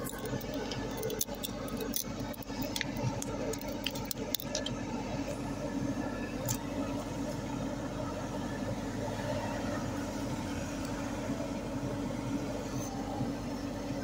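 Mini excavator engine running steadily. Sharp clicks and rubbing from handling the phone in the first few seconds.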